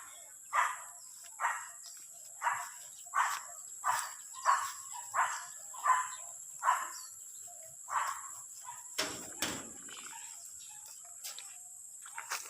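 A dog barking over and over, about ten barks under a second apart, stopping about eight seconds in. A steady high insect drone runs underneath.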